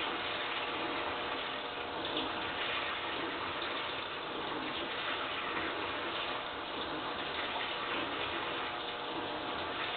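Toshiba AW-DG16WAG washing machine running with water in the tub: a steady rush of water over a faint motor hum, swelling every two seconds or so. The owner records the motor's sound as abnormal.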